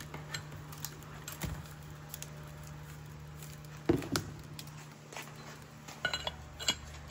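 Scattered metal clicks and knocks as a liquid-nitrogen-chilled wheel bearing race is lifted out of its bath with a metal hook and set into a Prevost bus wheel hub, the cold-shrunk race going into the hub bore. The loudest knock comes about four seconds in, and a few ringing metal clinks come near the end, over a steady low hum.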